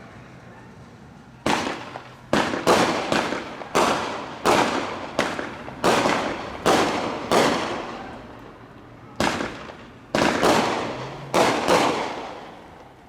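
Fireworks going off: a run of about fifteen loud bangs at irregular intervals, each ringing out and fading, starting about a second and a half in, with a short pause about two-thirds of the way through.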